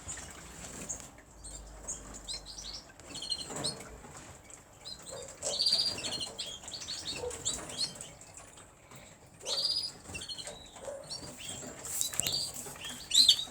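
Caged canaries chirping in short, scattered spells of high notes, with occasional wing flutters.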